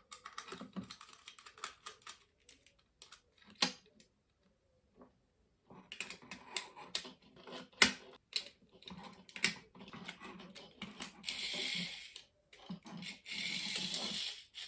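Irregular plastic clicks and taps from handling the opened Furby Baby toy, with a pause about four seconds in. Two short stretches of hiss come near the end.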